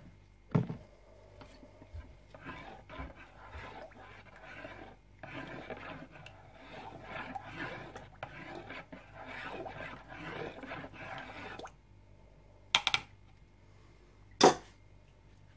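Oils being stirred in a plastic mixing bowl, the utensil rubbing and scraping against the bowl for several seconds with a short pause partway. A knock just after the start and two sharp knocks near the end.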